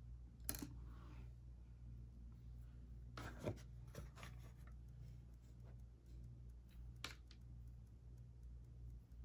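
Faint handling noise of makeup items, a few short clicks and rustles about half a second in, around three seconds in and about seven seconds in, over a steady low hum of room tone.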